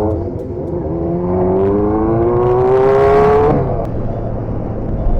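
Motorcycle engine accelerating, its pitch rising steadily for about three seconds, then dropping suddenly at a gear change, over a steady rush of riding wind.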